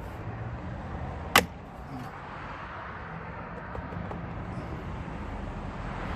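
A trim piece on a Ford F-150's passenger door panel popping loose as it is pried off: one sharp snap about a second and a half in, over a steady background hiss.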